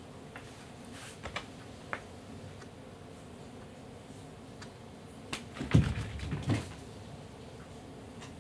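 A few light taps, then a short cluster of soft thumps a little past the middle: cats' paws moving and landing on a wooden floor.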